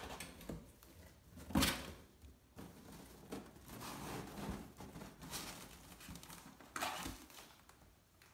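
Kittens scrambling over a cardboard box, their paws scratching and rustling the cardboard, with a sharp thump about one and a half seconds in and another near the end.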